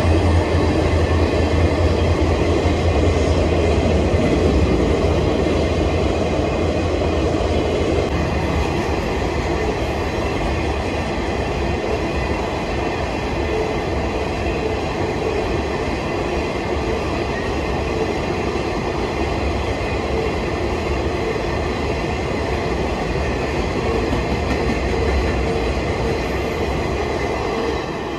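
Freight train rolling past, its cars making a steady rumble and clatter of wheels on rail. A heavier low rumble in the first few seconds eases off.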